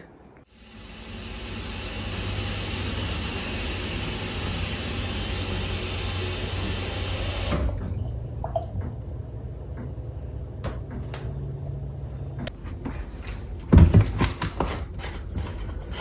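Kitchen tap running water into the clear plastic clean-water tank of a Hoover Clean Slate carpet cleaner, filling it for about seven seconds until the tap is turned off. Clicks follow, then one loud knock near the end as the tank is handled on the stone counter.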